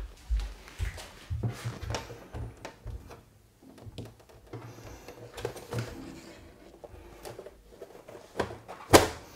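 Clicks, taps and dull knocks of a Dell U3415W curved monitor's plastic housing being handled and shifted on a desk, with one sharper knock near the end.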